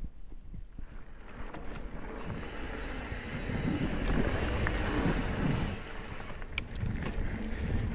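Trek Top Fuel mountain bike rolling over dirt singletrack: tyre and drivetrain noise mixed with wind on the camera's microphone. It grows louder from about a second in, with a few sharp clicks of the bike rattling near the end.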